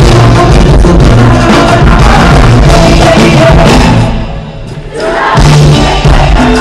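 Live cumbia band playing loudly with singing, heard from the audience in a concert hall. The music drops away briefly about four seconds in and comes back loud about a second later.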